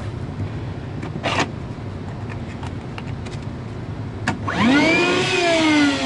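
A wet/dry shop vacuum switches on with a click near the end. Its motor whine climbs quickly and then begins to sag in pitch as it draws water from a flooded drain pan. Before that there is a steady low hum with a few handling knocks.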